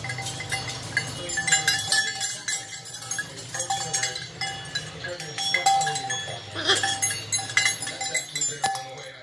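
Macaw playing with a hanging cage toy: rapid irregular clicks and clinks of hard plastic beads and metal chain knocking together, some with a short metallic ring.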